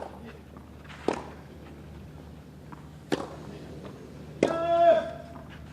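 Tennis rally: a ball is struck sharply by rackets three times, a second or two apart. On the last shot the player gives a loud half-second grunt.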